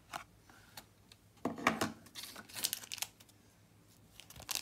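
Packaging being handled: a paperboard box opened and a clear plastic case and its plastic wrapper taken out, giving a run of light clicks, rustles and crinkles, loudest about one and a half to two seconds in.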